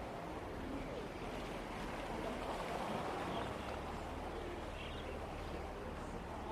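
Outdoor public-area ambience: a steady wash of background noise with a low hum, and faint snatches of distant voices.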